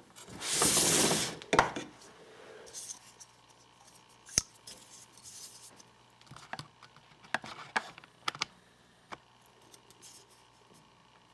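Handling noise from a folding pocket knife: a loud rustling burst near the start, then scattered sharp clicks and taps, about seven, as the knife is turned over and handled.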